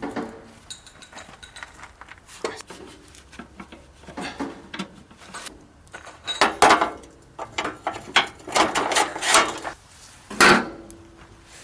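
Steel parts and hand tools clanking and knocking during reassembly of a manure spreader's gearbox as its gear cover lid is fitted. Clusters of clanks come in the second half, and one sharp metal clank near the end rings briefly.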